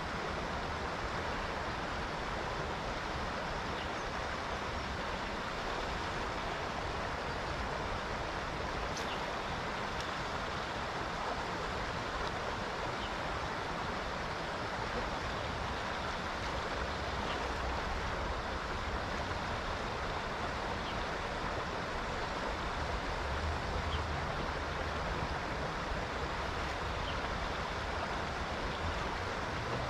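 Steady rushing of river water over rapids, with a low rumble under it and a few faint ticks every few seconds.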